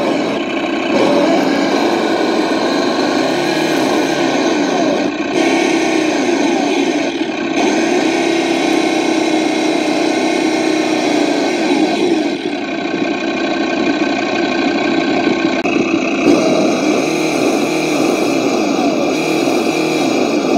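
Simulated engine sound from an RC crawler's sound module, played through its onboard speaker and running continuously with small rises and falls in pitch as the throttle changes.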